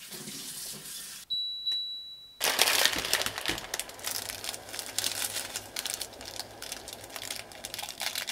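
Plastic instant-ramen seasoning packets crinkling and crackling as they are torn open and squeezed out over a pot of water. Before this, about a second in, there is a single high beep lasting about a second.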